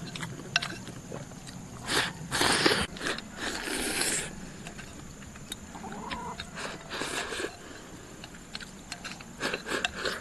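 Wooden chopsticks clicking and scraping against a ceramic bowl as the last rice and egg are eaten from the tipped-up bowl, with chewing and a few louder slurps about two to four seconds in.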